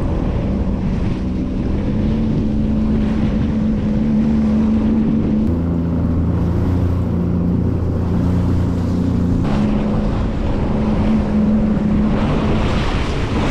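Personal watercraft engine running at speed over choppy water, with water rushing past the hull and wind buffeting the microphone. The engine note changes abruptly twice, about a third and about two-thirds of the way through.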